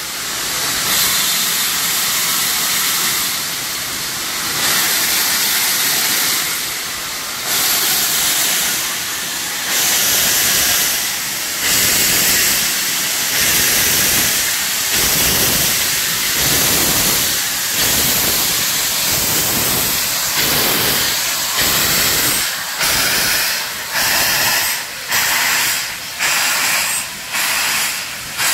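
Steam locomotive starting a train away: a loud steady hiss of steam from the open cylinder drain cocks, and from about halfway through, exhaust beats that start slow and come faster toward the end.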